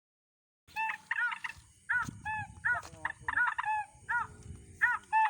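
A bird making short, sharp, arched calls in quick irregular series, several a second, starting abruptly after a silent moment.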